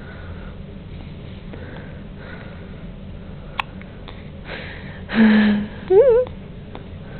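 Newborn baby with hiccups: a single sharp hic about halfway through, then a loud breathy sniff about five seconds in and a brief wavering squeak right after, over a steady low hum.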